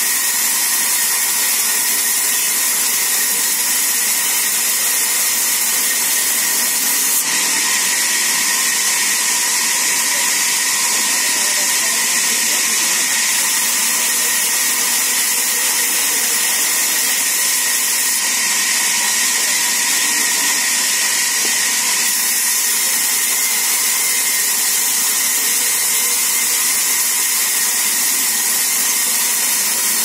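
Sawmill band saw running and cutting mango wood planks: a loud, steady hiss with a faint whine under it, brightening slightly about seven seconds in.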